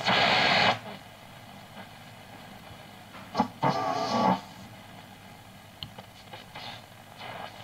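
Grundig 3160 valve radio being tuned across its dial, its loudspeaker giving a burst of noisy static at the start and a short fragment of a station a little past three seconds in, with low hiss between.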